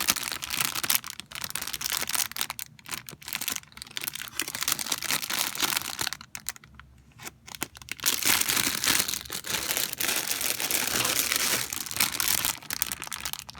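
Plastic model kit parts and their packaging being handled: crinkling and rustling with many sharp crackles, easing off for a moment around six seconds in.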